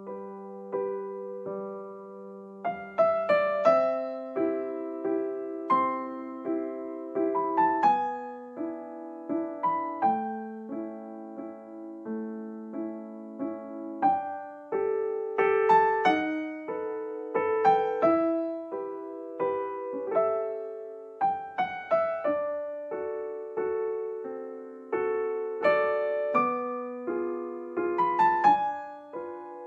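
Background music: a gentle solo piano melody of struck notes and soft chords, each note ringing and fading.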